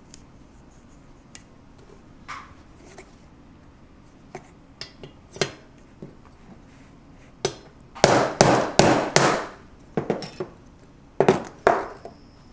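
Hammer striking the steel punch of a disc cutter to punch a washer out of sheet metal: scattered light taps at first, then a quick run of about five heavy blows a little past halfway and a few more near the end.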